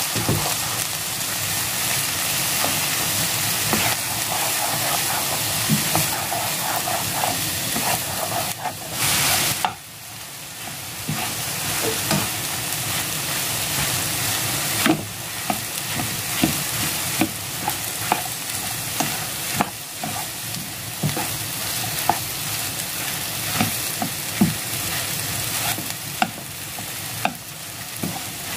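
Shredded cabbage, eggs and multigrain rice sizzling in a frying pan while a spatula stirs and scrapes them. The sizzle flares louder just before ten seconds in, then briefly drops, and in the second half the spatula knocks against the pan many times.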